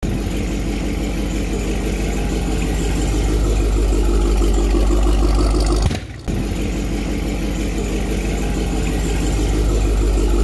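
Supercharged 6.2-litre HEMI V8 of a Dodge Challenger Hellcat Redeye idling steadily through its exhaust, with a deep, even rumble. The sound drops out briefly about six seconds in, then carries on.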